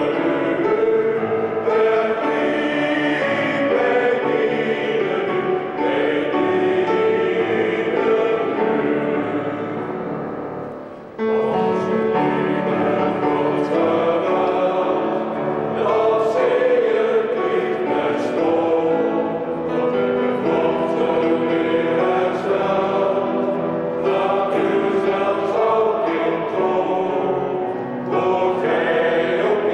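Men's choir singing a song, with a short pause between phrases about eleven seconds in.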